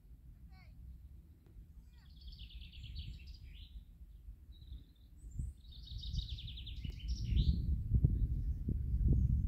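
A small songbird gives a few thin chirps, then two bursts of rapid high trilled song. Low, gusty wind rumble on the microphone grows much louder about seven seconds in.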